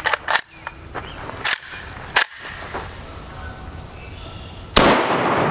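A few sharp clicks, then about five seconds in a single gunshot from a Zastava M85PV PAP pistol with a 10-inch barrel, firing 55-grain .223 Remington, with a long ringing tail after the report.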